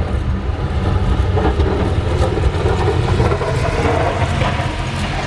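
Snowplow truck engine running steadily with a low, even drone, the truck working the snow-covered street.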